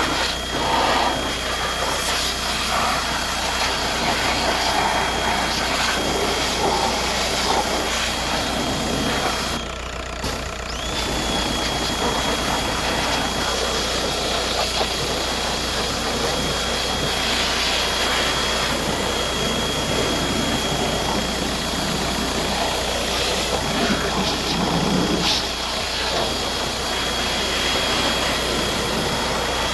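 Kärcher pressure washer running, its water jet spraying onto a car engine, with a steady high whistle over the noise. The spray stops for about a second around ten seconds in, then starts again.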